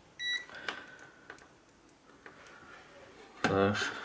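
A digital multimeter gives one short, high electronic beep as it is switched on, followed by light clicks of handling. About three and a half seconds in comes a louder, buzzy scrape and knock as the meter and its probes are handled.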